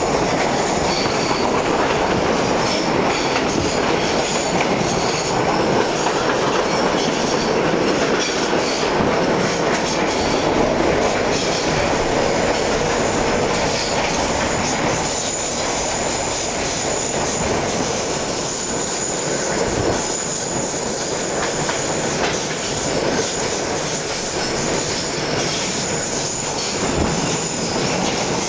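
Ride noise inside a moving Hershey electric railway carriage: a steady rumble and rattle of the wheels on the track, a little louder in the first half, with a thin high whine above it and an occasional knock from the rails.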